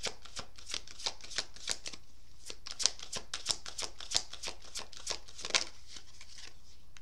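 A tarot deck being shuffled by hand: a quick run of soft card flicks and slaps, several a second, which stops near the end.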